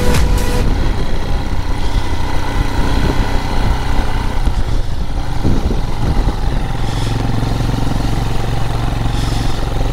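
Royal Enfield Himalayan single-cylinder engine running steadily while riding along, heard from on the bike.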